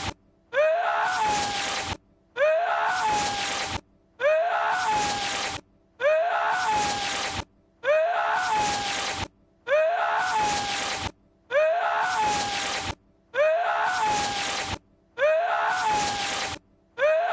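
The Lord Voldemort 'sneeze' voice clip: a man's breathy, sneeze-like cry, looped over and over about every two seconds with a short silence between repeats.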